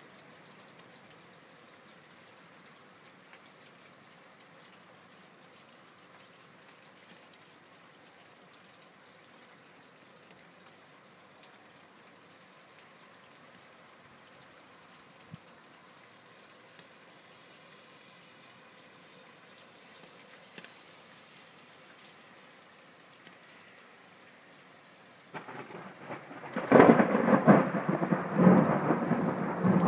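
Thunderstorm: a faint steady hiss of rain, then about 25 seconds in a close thunderclap that starts as a low rumble and breaks a second later into a loud, crackling roll of thunder.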